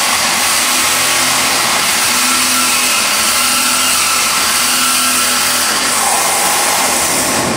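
Electric power drill running steadily under load, drilling into the wall.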